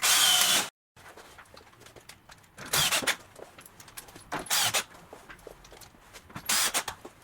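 Sounds of fixing a wall panel: a few short, noisy bursts of fastening work, a loud one at the start that cuts off abruptly, then three more spaced about two seconds apart, with light clicks and knocks between them.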